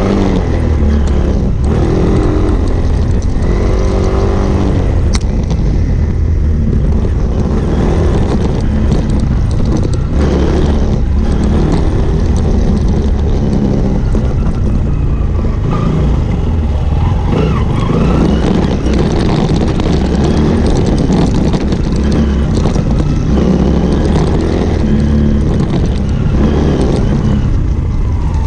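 Small single-cylinder motorcycle engine running on a dirt trail, its revs rising and falling as the rider works the throttle, with wind buffeting the microphone. A few sharp knocks come through over bumps.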